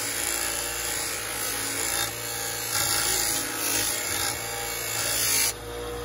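Bench grinder running with a part held against its wheel: a harsh grinding hiss that swells and eases as the part is worked, over the motor's steady hum. The grinding stops about five and a half seconds in, leaving the motor running.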